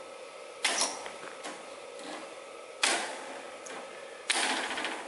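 Hand-held metal snips cutting strands of welded wire mesh: three sharp snaps, each wire parting about a second and a half after the last.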